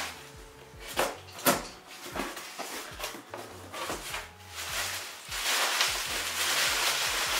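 A cardboard box being opened by hand: a few light knocks and scrapes of the flaps, then steady rustling of brown packing paper being pulled out, louder over the last two seconds.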